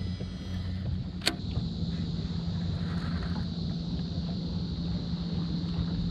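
Electric trolling motor on a bass boat running with a steady low hum, and a single sharp click about a second in.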